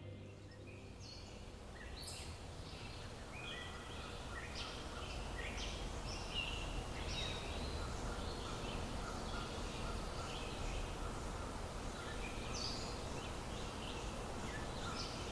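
Faint birds chirping, many short calls one after another, over a steady low background rumble.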